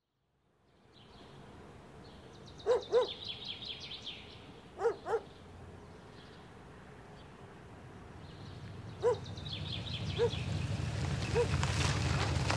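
A dog barking several times, mostly in quick pairs of barks, over an outdoor ambience with high twittering. A low rumble swells during the second half.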